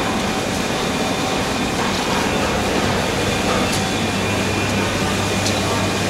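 Steady mechanical hum with an even rushing hiss, unbroken throughout.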